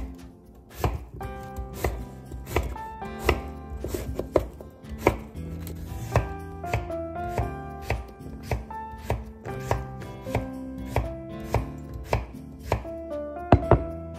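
A chef's knife cutting through daikon radish and then carrot onto a wooden cutting board: a steady chop about every half second. Background music plays underneath.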